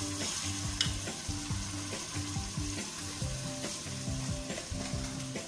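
Steady sizzling from a large aluminium pot as soaked rice is poured from a plastic bowl into the hot oily liquid, with background music playing over it.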